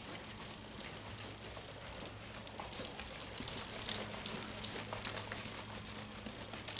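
A horse's hooves stepping at a walk on the soft sand footing of an indoor arena, a run of irregular dull footfalls that grows louder as the horse passes close by about four seconds in. A steady low hum runs underneath.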